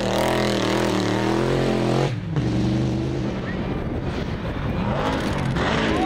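Rally-raid car engine running hard on a dirt course, with a steady, strong engine note. About two seconds in the sound cuts abruptly to another engine revving up and down.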